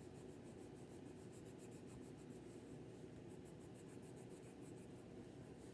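Coloured pencil shading on paper: faint, rapid back-and-forth scratching strokes in a steady rhythm.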